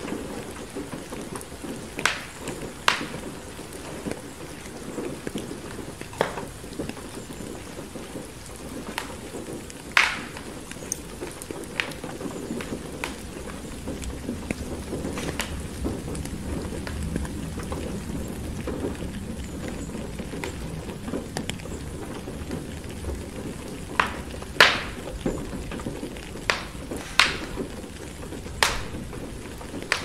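Steady rain against a window with a wood fire crackling: sharp pops come scattered through, clustered near the start and in the last few seconds, over a low rumble that swells through the middle.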